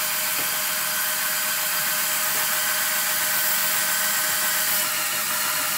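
A LEGO motor driving four LEGO pneumatic pumps runs steadily, pumping air into the air tanks against back pressure. Under this load the motor is drawing about 840 milliamps and running hot.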